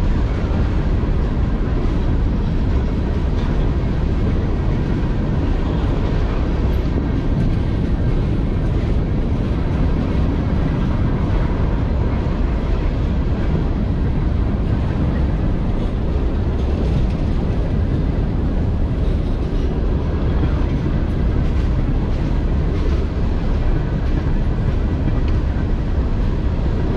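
Open-top hopper cars of a CSX rock train rolling past close by: a steady, loud low rumble of steel wheels on the rails.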